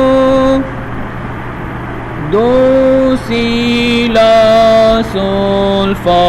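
A man's voice singing the solfège degrees of the Maqam Rast scale, holding each syllable as a sustained note of about a second with short breaks between them. About two seconds in the voice slides up into a note, then the notes step downward one by one.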